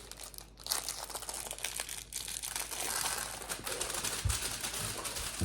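Plastic crinkling with many quick small clicks and taps as gingerbread-house decorations and candy are handled, with a dull thump about four seconds in.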